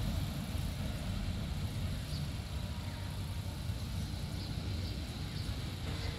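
Low, steady rumble of a distant train approaching along the line.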